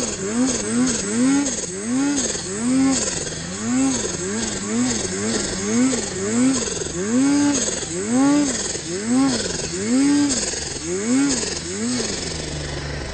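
Snowmobile engine revved up and down in quick, even blips, about two a second, as it works through deep powder. Near the end it settles into a steady lower drone.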